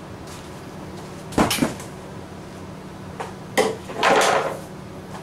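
Plastic knocks and scraping as a new air filter is fitted into a truck's plastic air box: two sharp knocks about a second and a half in, then more knocks and a longer scrape around four seconds in.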